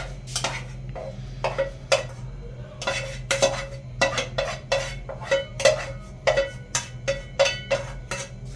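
Metal clinks and knocks as pineapple pieces and juice are shaken and tapped out of an opened tin can into a metal cooking pot: a quick, irregular string of strikes, two to three a second, each with a short metallic ring.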